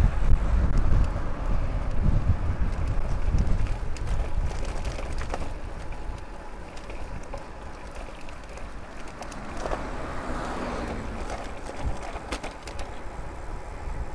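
Wind rumbling on the microphone of a moving bicycle, loud for about the first four seconds and then easing to quieter road noise with scattered light clicks.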